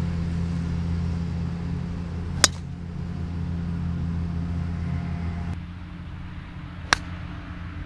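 Golf club striking a ball twice: a single sharp crack of a driver hitting a tee shot about two and a half seconds in, and near the end a single crisp strike of a shorter club hitting a ball off the turf. A steady low rumble runs underneath.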